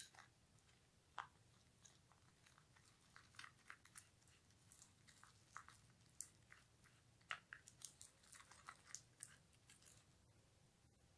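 Faint, irregular clicks and scrapes of a plastic spoon stirring a thick, sticky cocoa paste in a small glass bowl, the spoon ticking against the glass.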